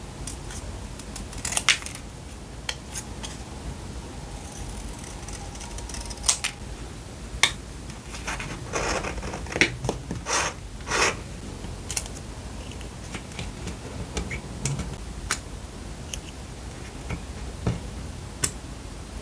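Hands handling paper and journaling supplies: scattered sharp clicks and taps, with a cluster of louder paper rustles about halfway through.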